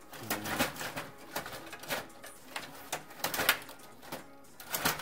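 STIGA table hockey game in play: the rods and plastic players clacking and rattling in quick, irregular clicks and knocks, loudest about three and a half seconds in.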